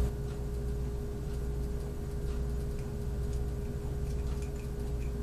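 Steady electrical hum with a few faint small clicks and taps as a metal e-cigarette mod is handled and worked apart.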